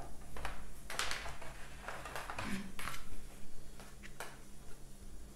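Cardboard and card board-game components being handled and unpacked: several short rustles and light taps spread across a few seconds.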